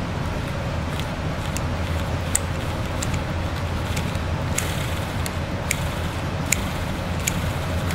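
Light, scattered metallic clicks as the rotor and rollers of a CAV diesel injection pump are worked by hand, over the steady low hum of a running shop heater.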